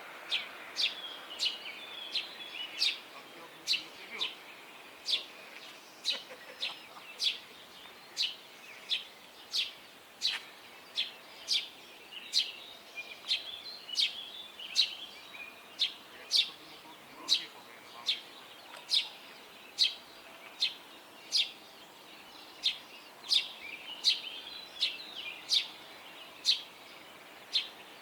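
A bird repeating one sharp, short call about twice a second, steadily and without a break, with other birds chirping more softly behind it.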